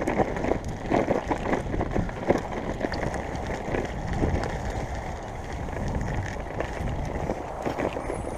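Bicycle ridden over a rough grass-and-dirt towpath: steady wind rush on the microphone and tyre rumble, with frequent irregular knocks and rattles as the bike jolts over bumps.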